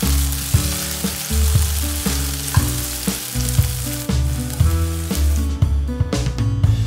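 Diced chicken sizzling in oil in a nonstick frying pan while a spatula stirs it. The sizzle fades near the end as the pan is taken off the heat and tipped. Background music plays underneath.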